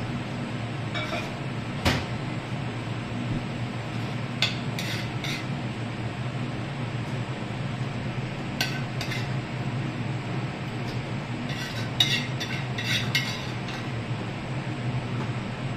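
Metal ladle stirring and scooping curry in a frying pan, with scattered clinks and taps of metal on the pan and a quick run of them near the end. A steady low hum sits underneath.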